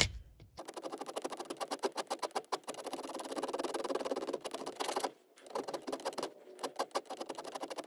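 Thin round file rasping over the edge of a small metal part held in a bench vise, in quick back-and-forth strokes as the edges are feathered by hand. It breaks off briefly about five seconds in and again just after six seconds.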